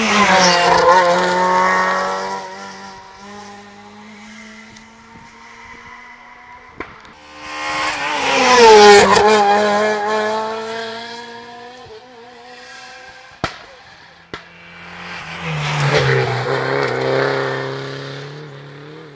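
Three rally cars going by one after another, each engine loud at full revs and dropping in pitch as it passes. A few sharp cracks fall between the second and third cars.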